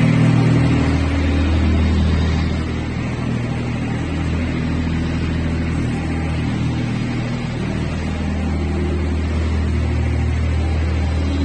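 DIGBOY V800 skid steer loader's diesel engine running steadily, a little louder for the first couple of seconds.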